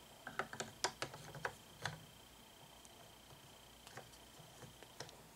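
Light clicks and taps of hands handling and fitting a statue's parts: several in quick succession in the first two seconds, then a few more near the end.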